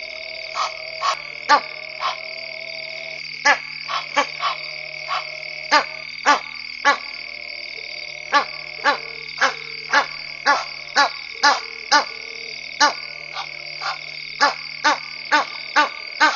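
Sharp, clicking animal calls repeat irregularly about twice a second over a steady high-pitched night chorus, with a few held humming tones coming and going beneath.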